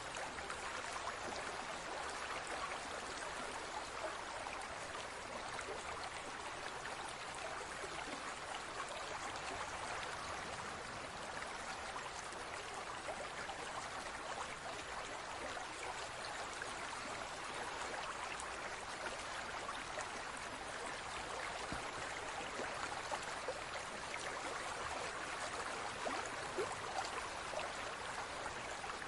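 Aquarium water trickling and bubbling steadily, a continuous even wash of water sound.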